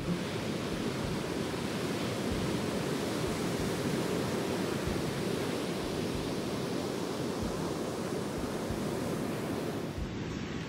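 Steady rushing wind on the microphone, with irregular low buffeting thumps.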